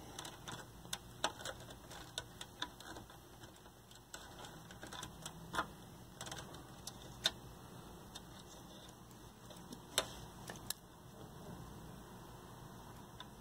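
Scattered small clicks and ticks of pliers and wire leads knocking against a metal TV chassis as the wiring is worked by hand, the sharpest clicks about seven and ten seconds in.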